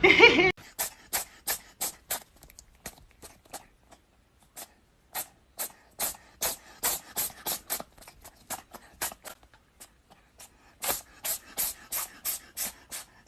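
A dog panting: short, quick, hissy breaths, in runs of about four a second broken by pauses.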